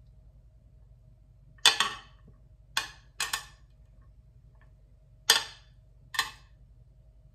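Kitchen tongs clacking against the strainer and pot while lifting out spaghetti: about six sharp clicks with a short ring, two of them in a quick pair, scattered over several seconds.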